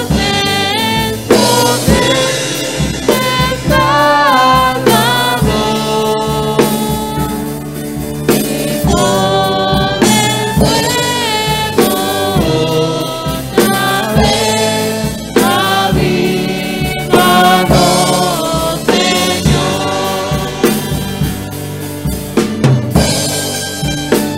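A congregation singing a hymn in Spanish in unison, accompanied by acoustic guitar, violins and mandolins, with a steady drum beat.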